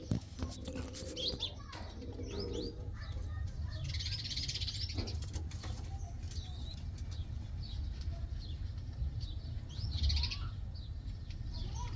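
Domestic pigeons cooing in the first few seconds, with bursts of wing flapping about four seconds in and again near ten seconds, and many short high chirps throughout. A steady low rumble runs underneath.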